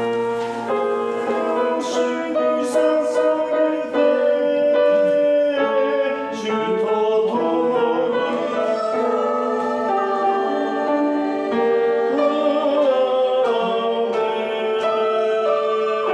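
Choir singing a slow piece in held, sustained chords with piano accompaniment.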